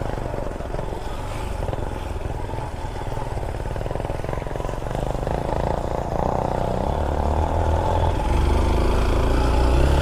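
Honda XR190 single-cylinder motorcycle engine running under way on a rough road, growing louder toward the end.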